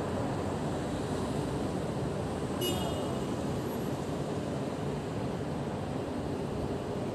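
Steady road traffic noise of a busy city street, with a brief high-pitched squeak about two and a half seconds in.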